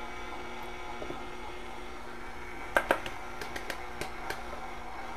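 Electric stand mixer running steadily as it mixes cookie dough while flour is poured in. Two sharp clicks come a little before the middle, followed by a few lighter ticks.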